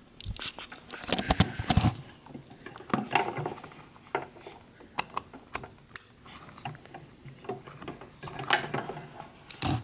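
Irregular clicks, knocks and scrapes from handling an Ethernet cable and a small plastic TP-Link PoE splitter while the cable's plug is pushed into it. The densest and loudest clatter comes about one to two seconds in.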